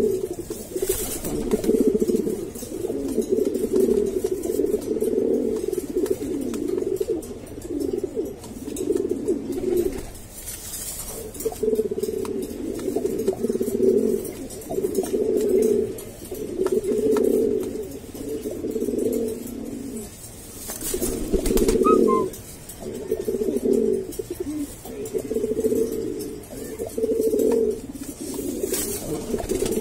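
Domestic pigeons cooing: repeated low coo phrases, each a second or two long with short gaps, the courtship cooing of a cock pigeon displaying to a hen. There are a few short rustles now and then.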